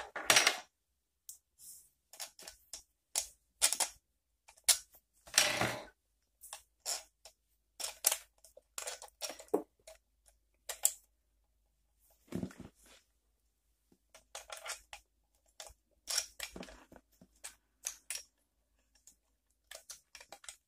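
Plastic action-camera mount parts being handled and fitted together: irregular clicks, knocks and short rubs, with brief pauses between them.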